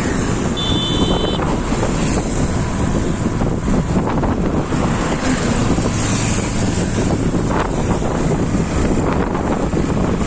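Wind rushing over the microphone with the engine and tyre noise of a motorcycle riding in traffic. A brief high beep sounds about a second in.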